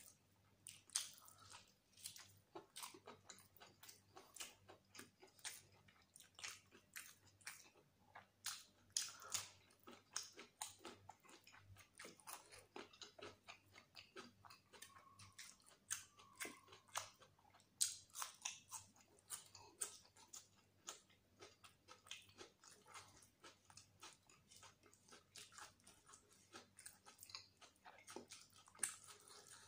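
Close-miked chewing of mutton biryani: rapid wet mouth clicks and smacks several times a second, with some crunching.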